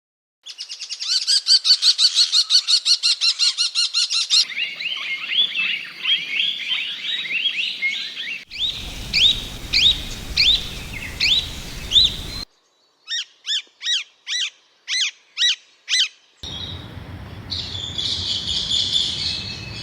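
Indian parakeets calling in a run of separate clips: first a fast stream of chattering chirps, then a series of sharp rising screeches, then single shrill calls repeated about twice a second, and near the end a noisy burst of chatter.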